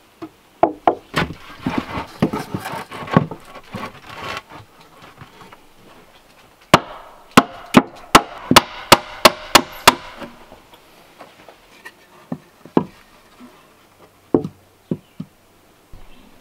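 Claw hammer striking the rough-sawn wooden boards of a slipform box: a quick cluster of knocks and clatter, then a steady run of about eight hammer blows a little over two a second, then a few lone knocks near the end.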